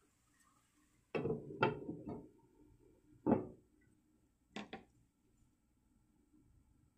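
Kitchen clatter: about six knocks of cookware and utensils being handled and set down, three in quick succession, a louder one a little later, then a close pair.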